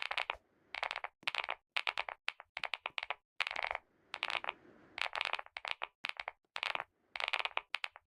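Cream sound effect: short bursts of sticky, crackling clicks, about two bursts a second.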